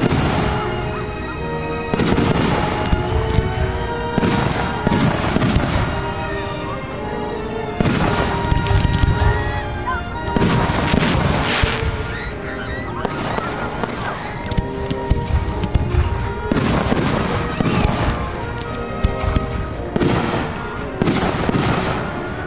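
Aerial firework shells bursting one after another, sharp bangs every second or two with a crackling tail, over music with long held notes.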